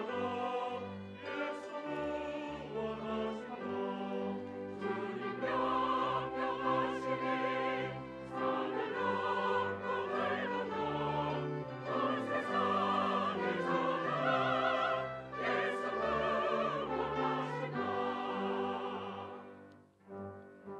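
Mixed church choir singing a hymn anthem in Korean with string orchestra accompaniment: violins, cello and double bass. The sound dips sharply near the end as a phrase closes.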